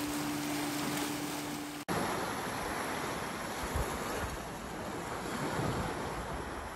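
A boat's engine drones steadily over rushing water, then cuts off abruptly about two seconds in, giving way to the wash of sea waves against a rock breakwater, with wind on the microphone.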